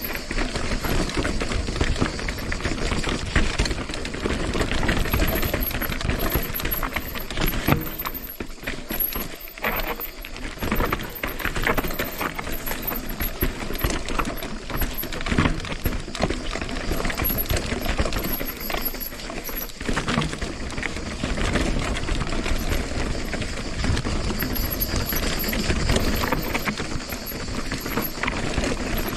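Mountain bike riding down a rocky trail: tyres crunching and knocking over rock and the bike rattling with constant small impacts. It eases briefly about a third of the way in.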